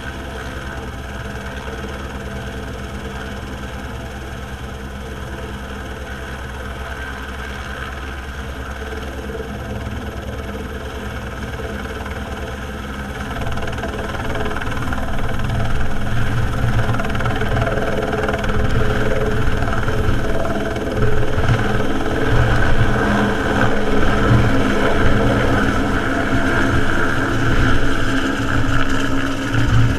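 Helicopter running on the ground with the turbine whine and fast rotor chop, then powering up. It gets clearly louder about halfway through and again a little later as it lifts off and climbs away near the end.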